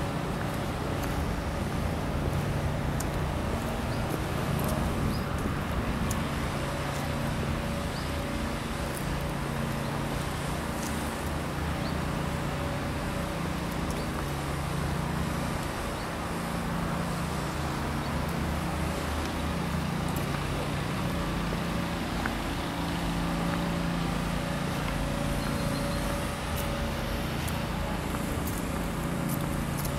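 Steady outdoor city background noise, with a low hum that shifts in pitch every second or two.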